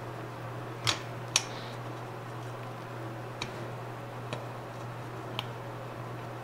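Light clicks and taps of metal cart parts being handled as a shelf screw is threaded in by hand: two sharper clicks about a second in, then three fainter ticks spread over the rest, over a steady low hum.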